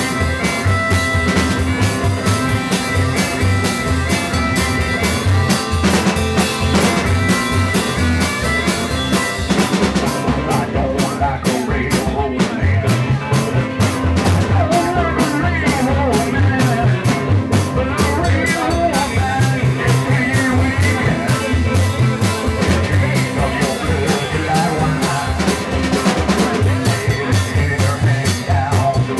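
Live rock and roll band playing: upright bass, electric guitar and drum kit. Sustained chords at first, then from about ten seconds in the drums keep a steady beat under a wavering lead line.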